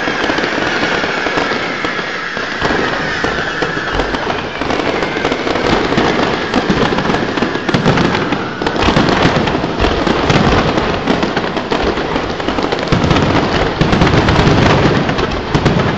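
Aerial fireworks display: a dense, continuous barrage of crackling and bangs, with a high whistling tone slowly falling over the first few seconds. It grows heavier, with deeper booms, from about eight seconds in.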